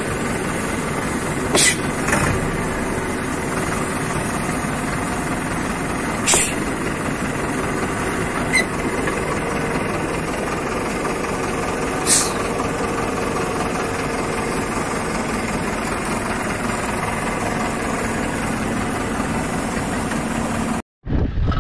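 An engine running steadily, with four short sharp knocks spread over the first half.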